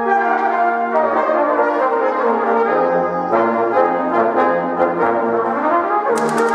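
Brass quintet of trumpets, trombones and cimbasso playing sustained chords over a pulsing low bass line. About six seconds in, a rapid stream of sharp clicks from the percussion's typewriter part joins.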